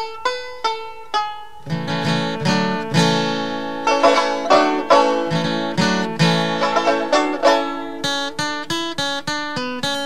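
Background music: a picked plucked-string instrumental tune, with a fuller, lower accompaniment coming in about two seconds in.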